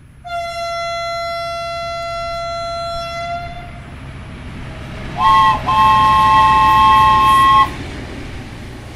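A train whistle sounds one steady note for about three seconds. After a pause, a two-tone train horn gives a short blast and then a long one of about two seconds, over a steady low rumble of a train running.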